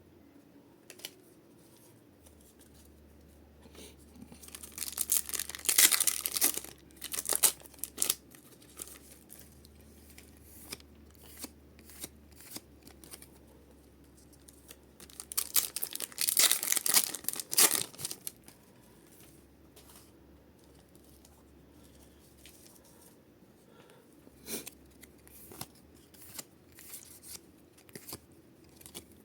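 Pokémon booster pack wrappers being torn open and crinkled by hand: two loud bouts of tearing and crinkling, about five and about sixteen seconds in, with lighter rustles and small clicks of handling between them and near the end.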